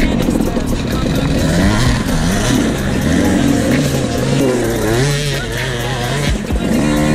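Dirt bike engine revving up and down with the throttle, its pitch rising and falling repeatedly.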